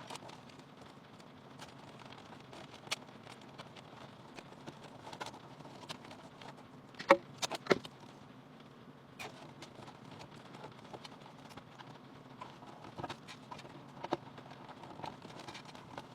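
Irregular light clicks and taps over a faint steady low hum, with a cluster of louder clicks about seven to eight seconds in.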